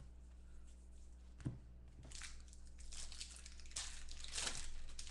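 Foil wrapper of a 2015 Bowman Football card pack crinkling and rustling as it is handled, swelling several times in the second half. There is a single soft knock about a second and a half in.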